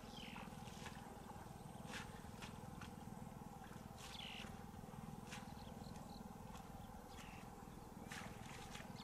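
Steady low wind rumble on the microphone in an open field, with scattered crackles of footsteps through marsh plants and two short falling chirps, one right at the start and one about four seconds in.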